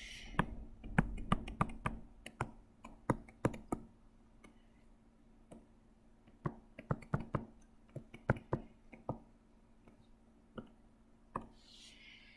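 Quick, irregular clicks and taps from a computer input device as lettering is drawn by hand on screen. They come in two flurries, one starting about half a second in and one about six seconds in, with a couple of lone clicks near the end.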